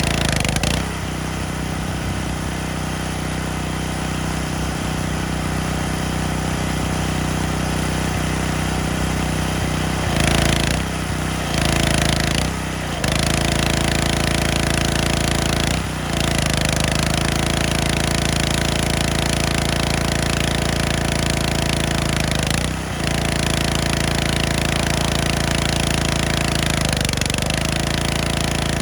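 Petrol-engine pressure washer running steadily with the hiss of its spray; the engine's pitch sags briefly several times and the sound breaks up for a moment about ten seconds in.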